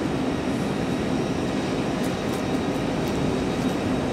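Train running at a station platform: a steady low hum with a faint high-pitched whine, and a few faint ticks in the second half.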